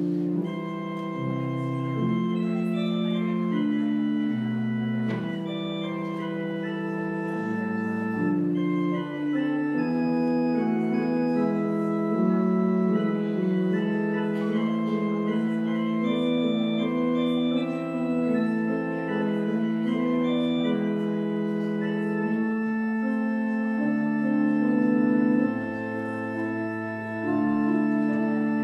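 Church organ played with both hands: sustained chords in several parts, the notes held and moving in steps, with no pauses.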